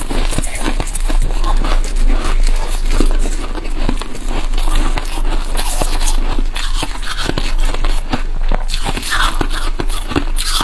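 Freezer frost being bitten and chewed close up: a continuous run of crisp crunches and crackles.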